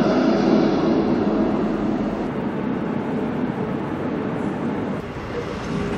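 Steady rumble of railway station noise under a large train shed, with trains standing at the platforms, slowly getting quieter.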